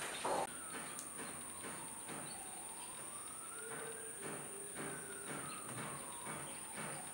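A faint siren wails slowly, falling, rising and falling again over several seconds, over a steady high-pitched insect drone. A short knock comes just after the start.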